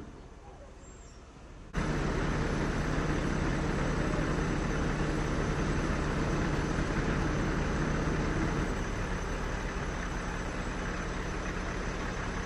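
Fire engine's diesel engine running hard to drive its pump, loud and steady, with the hiss of a hose stream over it. It comes in suddenly about two seconds in, and the engine note drops a little about nine seconds in.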